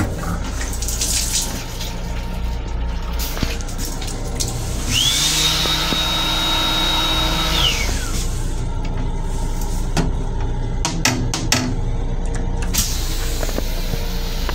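Sensor faucet at an M7 railcar restroom sink running for about three seconds, with a pump whine that rises, holds steady and falls away as the water stops. A steady low hum runs underneath, and a few sharp clicks come near the end.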